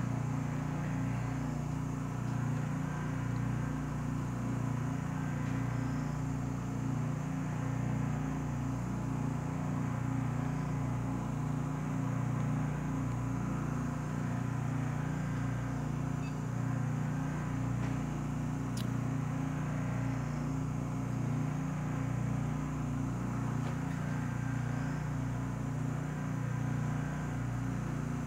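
SST 2200 Turbo vacuum furnace running steadily under vacuum with its heater off during cool-down: an even, low mechanical hum from its vacuum pump and cooling equipment. There is one faint click about two-thirds of the way through.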